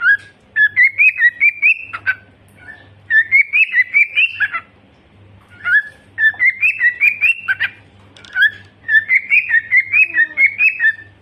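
Pet parrot whistling and chirping in quick runs of short, bright notes, several notes a second, in phrases of one to three seconds with short pauses between.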